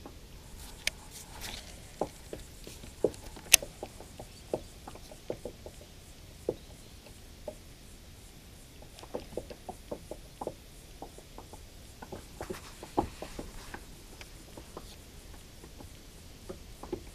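Faint, irregular small clicks and light taps as a baitcasting reel is slowly wound in on a lure retrieve from a kayak. One sharper click comes about three and a half seconds in.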